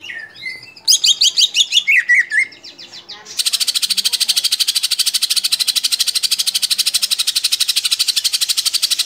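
Male green leafbird (cucak ijo) singing: a few whistled notes, then a burst of loud, rapid sweeping notes about a second in. From about three seconds in comes a long, fast, even chattering trill (ngekek) that runs on for nearly six seconds.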